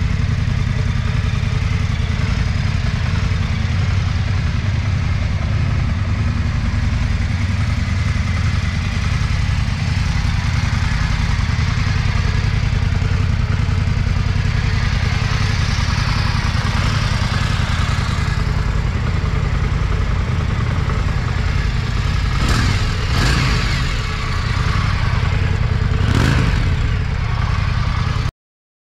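2025 Indian 101 Scout's 1250 cc liquid-cooled V-twin idling steadily through its stock exhaust, with two short revs of the throttle near the end.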